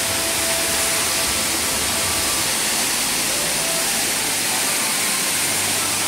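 Waterfall with several streams pouring and splashing down into a pool: a steady rushing hiss.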